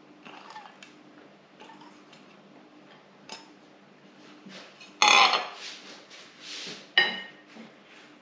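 Small stainless steel prep bowl and utensils clinking and scraping lightly as bean sprouts are taken from it, then two sharp metallic clanks about five and seven seconds in, the second ringing briefly.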